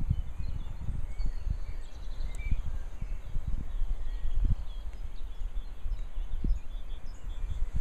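Wind buffeting the microphone in uneven gusts, with faint birds chirping behind it.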